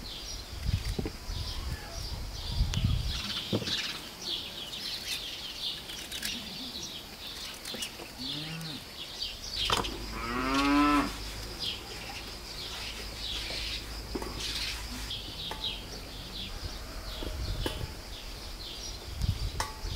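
A cow moos once, about ten seconds in, after a shorter, lower call just before it. Small birds chirp high throughout.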